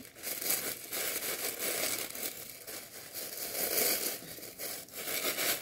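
Tissue paper crinkling and rustling as it is unfolded and handled by hand.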